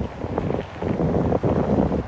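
Wind buffeting the microphone in uneven gusts, over a low street rumble.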